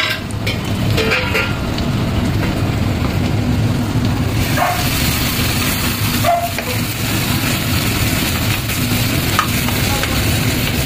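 Hot oil with whole spices sizzling in an aluminium kadhai, the hiss growing louder about four seconds in as ground onion-tomato paste goes into the pan. A short tone sounds twice in the middle.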